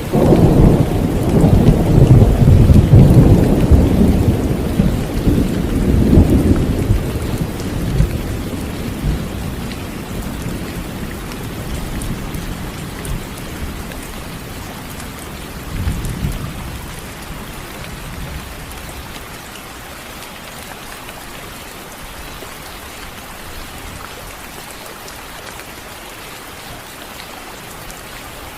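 Thunder rumbling over steady rain: a loud, long roll of thunder at the start fades over several seconds, a shorter rumble comes about halfway through, and the rain keeps up a steady hiss.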